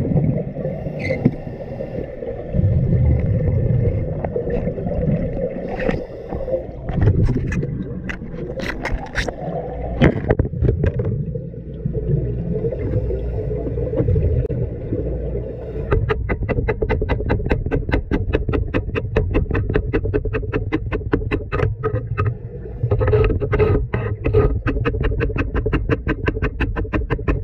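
Underwater wet-welding arc crackling in a rapid, even stream over a low rumble and a steady hum. The crackle is scattered at first and runs continuously from a little past midway.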